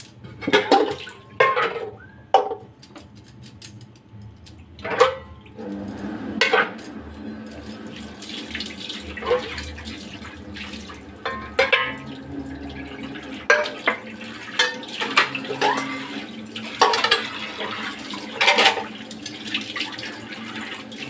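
Refined cooking oil being poured into an iron wok, with irregular glugs and splashes over a steady liquid rush.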